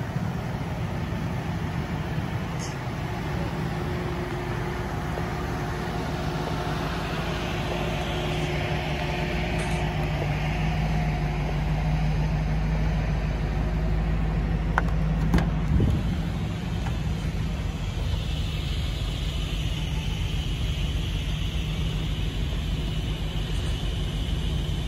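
Hummer H2 stretch limousine's V8 idling with a steady low rumble that grows louder for a while in the middle. There is a single sharp knock about fifteen seconds in.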